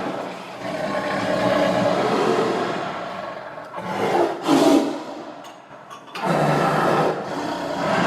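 Tiger growling and roaring in long, rough, rumbling calls. The loudest roar comes about halfway through, then a short lull, then another deep growl starts.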